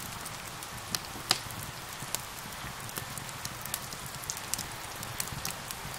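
Steady rain hissing with a wood fire crackling over it: irregular sharp pops and snaps, the loudest a little over a second in.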